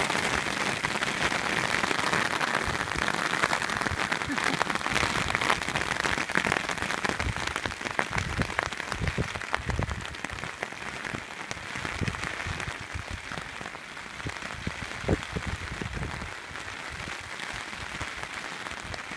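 Hail shower: a dense, steady patter of hailstones striking the ground, easing off partway through, with gusts of wind buffeting the microphone.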